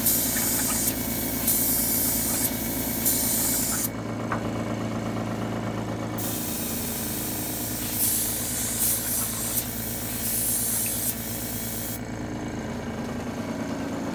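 Badger 350 single-action airbrush hissing in on-off bursts as water is sprayed and back-flushed through it to clean it. The hiss stops for a couple of seconds about four seconds in and again near the end, over the steady hum of the compressor feeding it.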